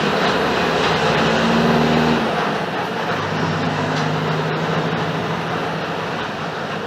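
Diesel engine of a Mercedes-Benz OF-1721 BlueTec 5 bus running under way, with the bus's own running noise. The engine note drops about two seconds in, then climbs slowly again.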